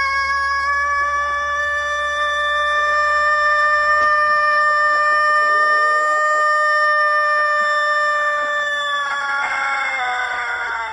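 A rooster crows one extraordinarily long crow, held at a steady pitch for more than ten seconds. It sags slightly in pitch and trails off near the end.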